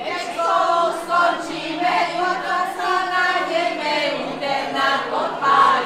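A group of mostly women's voices singing a song together, many voices at once.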